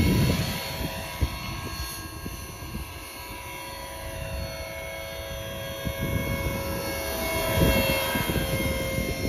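Electric RC helicopter with T-Rex 450 mechanics in flight: a steady high whine from the motor and drivetrain over the whoosh of the spinning rotor blades. It grows louder as the helicopter passes close at the very start and again about eight seconds in.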